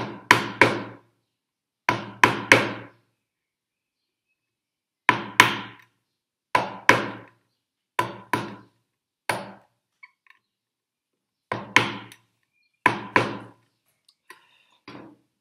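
Wooden-handled bench chisel struck with a mallet, chopping small cuts across a hinge mortise in ash towards the depth line. Sharp strikes with a short ring come in quick groups of two or three, about ten groups in all, fainter light taps near the end.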